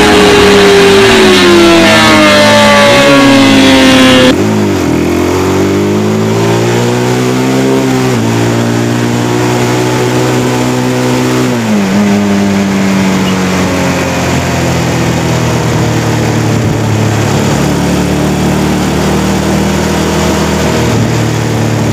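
Rusi Gamma R200 motorcycle engine running under way. Its pitch climbs as it accelerates and drops in steps at the gear changes. A louder passage cuts off abruptly about four seconds in.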